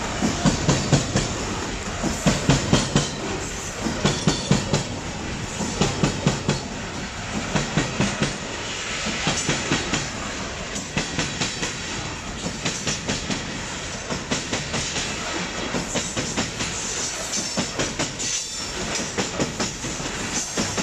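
Covered hopper wagons of a goods train rolling past close by, wheels clattering over rail joints in quick clusters of clacks every second or two over a steady rolling rumble.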